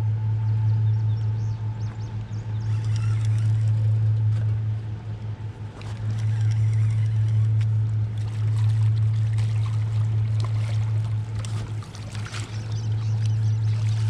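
A boat's outboard motor running with a steady low hum, with water splashing beside the boat as a catfish is brought to the landing net near the end.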